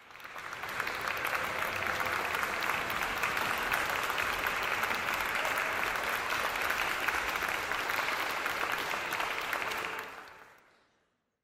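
Audience applauding steadily, fading in at the start and fading out about ten seconds in.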